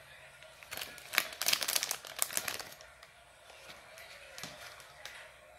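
Foil blind-bag wrapper of a Titans vinyl figure crinkling as it is crumpled in the hand, in a dense run lasting about two seconds from about a second in. A few faint clicks follow near the end.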